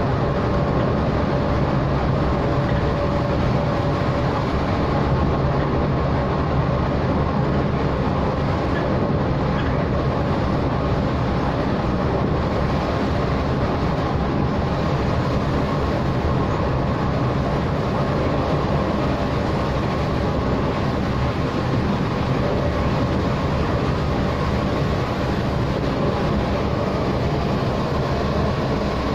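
Steady drone of a Scania coach on the move, heard from inside its cabin: engine hum mixed with road noise, even throughout with no sudden changes.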